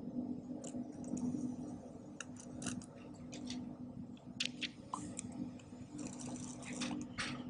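Red felt-tip marker drawing lines: a string of short, irregular scratchy strokes with small gaps between them, over a faint steady hum.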